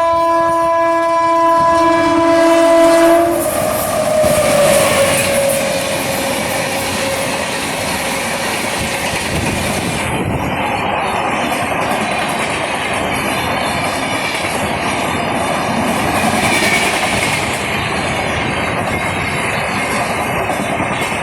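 Indian express train's locomotive horn blaring a steady chord of several tones, cutting off about three seconds in, with its tone sliding lower as it fades. It is followed by the continuous rumble and clickety-clack of the coaches running through the station at speed without stopping.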